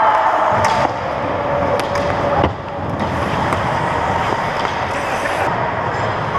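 Ice hockey skates scraping and cutting across the ice, with stick clacks and a single sharp knock of a puck or stick about two and a half seconds in.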